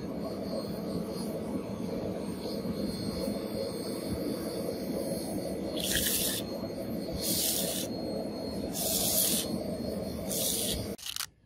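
A red-hot steel knife blade being quenched in a can of liquid to harden it: a steady low sizzle and bubbling, with four short, sharp hisses about a second and a half apart as the blade is plunged and moved in the bath.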